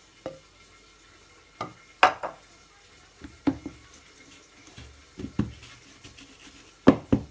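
Scattered sharp knocks and clinks of kitchenware on a hard counter: a glass mixing bowl with a silicone spatula being set down, and a metal cake pan filled with batter being shifted and knocked against the board. The loudest knocks come about two seconds in and again near the end.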